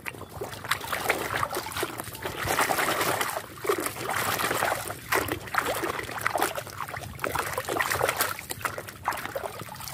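Water sloshing and splashing in a plastic basin as a hand swishes and scrubs a toy car under the surface, in irregular repeated swells.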